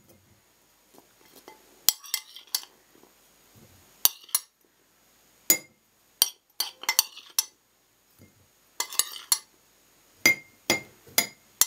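A metal utensil clinking against a glass jar and a plate as carrot pieces are put into the jar, in scattered sharp clinks and short quick clusters.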